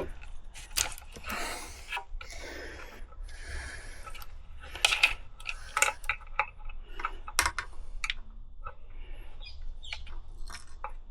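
Irregular small clicks, taps and rustling of hands working on motorcycle wiring, as the old turn signal's wire connectors are pulled apart and the indicator is taken off.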